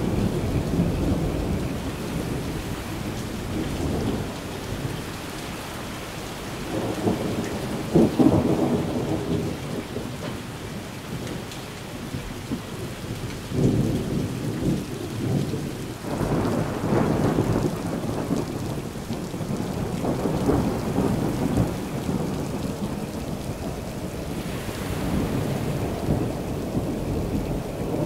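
Rain falling steadily through a thunderstorm, with thunder rolling again and again in low swells. The loudest peal breaks sharply about eight seconds in.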